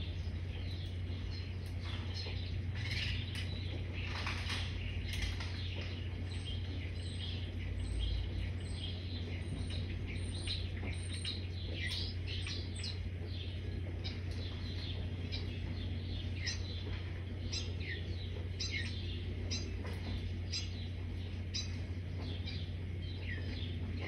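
Sparrows chirping, many short falling chirps repeated over and over, with a steady low hum underneath.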